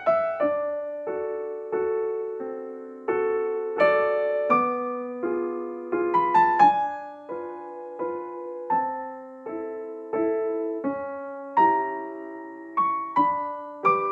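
Background piano music: a slow, gentle melody of struck notes and chords, each note fading after it is played.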